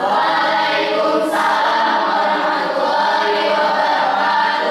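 A group of voices singing together like a choir, one loud sustained passage.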